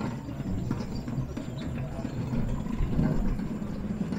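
Tibetan Buddhist prayer wheels being turned by hand, a low, uneven rumble with faint ticks.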